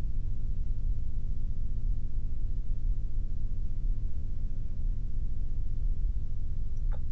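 Steady low rumble of background noise with no distinct events, and a faint click near the end.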